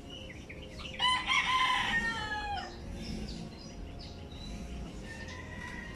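A rooster crowing once, about a second in, one loud call lasting under two seconds that drops in pitch at the end.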